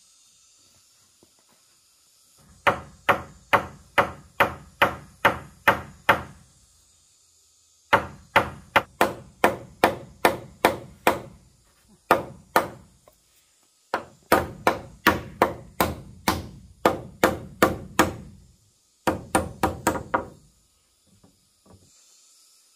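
Hard blows from a hand tool, about three a second, in five runs of two to fourteen strikes with short pauses between.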